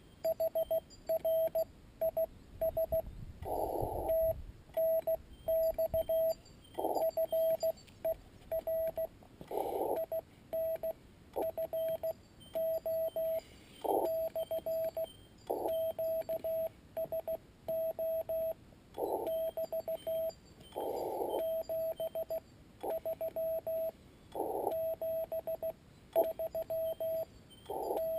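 Morse code from a Yaesu FT-817ND transceiver: a single steady tone, pitched around 650 Hz, keyed on and off in quick dots and dashes, with patches of band hiss around the signal now and then.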